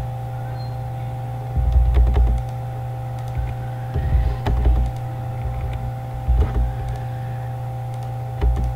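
Steady electrical hum, with four short groups of clicks and low thumps from a computer mouse and keyboard in use, spaced about two seconds apart.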